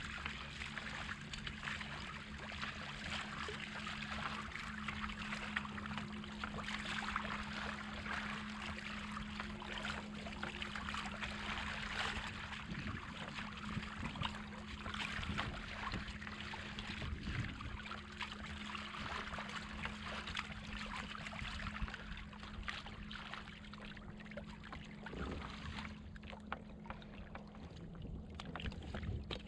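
Water rushing and splashing along the hull of a fishing kayak moving at speed, about 4.7 mph, with a steady low hum under it that cuts out near the end.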